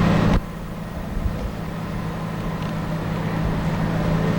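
A vehicle's motor runs with a steady low hum under road and wind noise. The level drops suddenly about half a second in, at a cut in the recording.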